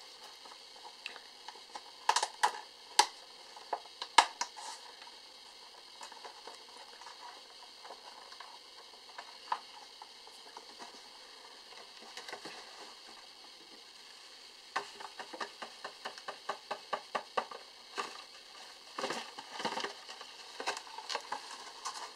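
Crinkling and clicking of a clear plastic bag of crickets being handled over a vivarium's wood-chip substrate. Sharp clicks come scattered through, with a quick run of clicks about two thirds of the way in.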